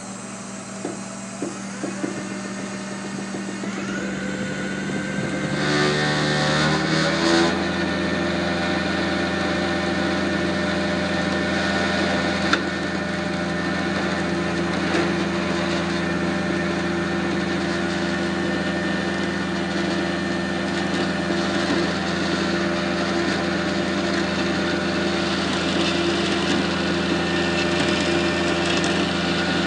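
Flatbed tow truck's engine running, rising in speed about six seconds in and then holding steady at the higher revs. A sharp knock comes about twelve seconds in.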